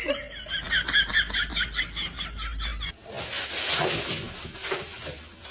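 An animal's rapid, high, short chirping calls, about five a second, then about three seconds in a harsh noisy hiss that lasts about three seconds.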